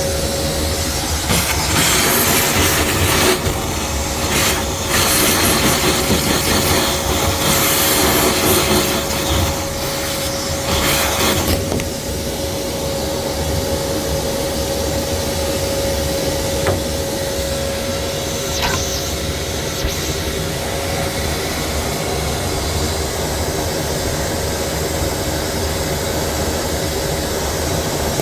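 Wet-and-dry vacuum running steadily with a steady whine, sucking water out of a washing machine that would not drain. For the first dozen seconds its rush comes and goes louder in several surges, then it settles to an even drone.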